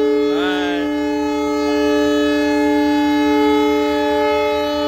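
Train locomotive's air horn giving one long, steady two-note blast, the signal of the express train's departure.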